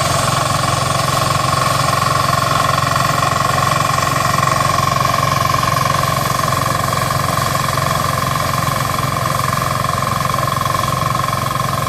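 Small rubber-tracked 4LZ-0.3 rice combine harvester running steadily: a fast, even engine beat with a steady high whine over it.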